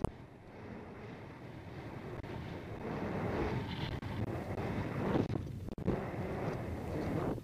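Wind buffeting a helmet-mounted camera's microphone while the horse and rider move at speed, a rumbling rush that grows louder about three seconds in and briefly cuts out twice near the end.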